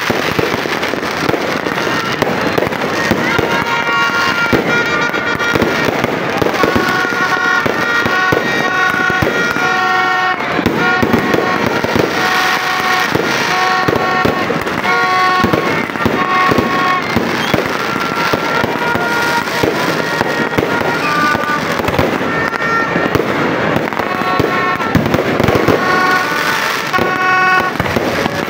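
Aerial fireworks going off continuously: a dense run of bangs and crackling from bursting shells. Many short, steady high toots sound over the bangs throughout.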